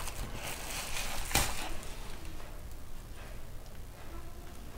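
Stainless steel cutlery handled in its cardboard box, a fork lifted out: a few faint knocks and one sharp click about a second and a half in.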